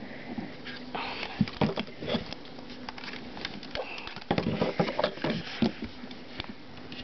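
Handling noise: irregular rustles, plastic clicks and knocks as an AC adapter and its cord are handled and plugged in. The busiest stretch of clicks and knocks comes in the second half.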